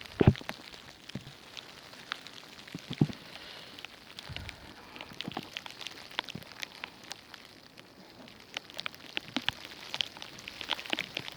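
Irregular pattering of falling drops on surfaces. Two heavier thumps, one right at the start and one about three seconds in, are the loudest sounds.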